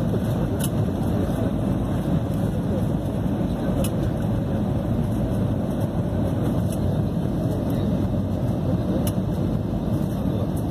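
Airliner cabin noise during the landing approach: a steady, deep rush of engines and airflow heard from inside the passenger cabin.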